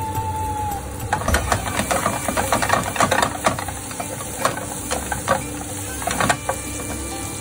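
Wooden spatula stirring garlic, ginger and chili in hot olive oil in a nonstick frying pan: irregular scraping and clicking strokes against the pan, starting about a second in and dying away after about six seconds, over the sizzle of the oil.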